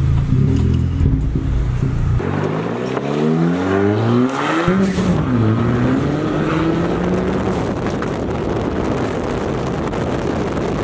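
Loud-exhausted car engine accelerating: the engine holds steady, then revs climb about two seconds in and drop sharply near the middle at a gear change. Revs then rise more slowly and level off into a steady drone.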